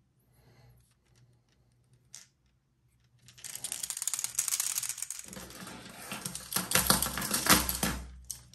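The loose knocker ball inside a hard plastic Yo-Zuri trolling lure rattling as the lure is shaken: a fast run of clicks that starts about three seconds in, lasts about five seconds and is loudest near the end.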